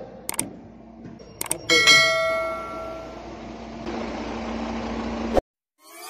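Two mouse-click sound effects, then a notification-bell ding that rings out and fades, laid over the low steady hum of an idling fire engine. The sound cuts out abruptly near the end, and a rising synth sweep begins.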